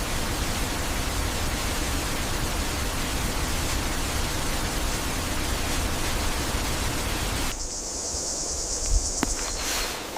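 Steady rush of falling water from a waterfall. It cuts off suddenly about three-quarters of the way through, giving way to a quieter high hiss with a single sharp tick.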